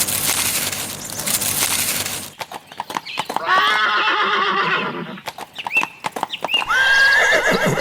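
Horse sound effect: a long, wavering neigh about three and a half seconds in, followed by shorter calls and a run of sharp hoof knocks, after a loud noisy stretch in the first two seconds.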